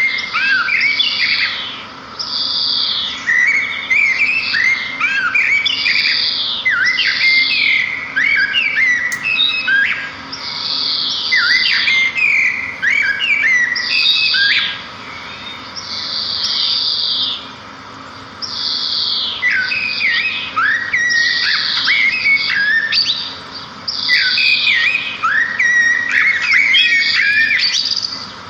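Small songbirds singing continuously: bright chirps, falling whistles and warbled phrases following one another every second or two, with short pauses between bursts.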